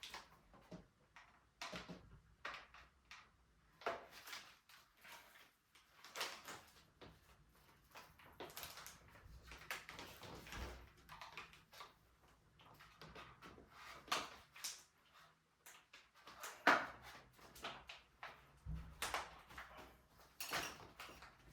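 Hands working a new mountain bike's handlebar free of its packaging: scattered clicks, knocks and rustles of plastic, cardboard and metal parts, with one louder knock near the end.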